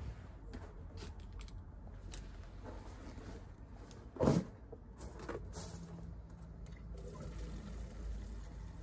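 Water running from an outdoor tap as a hiker fills a water bottle, with small clicks of handling and one louder knock about four seconds in.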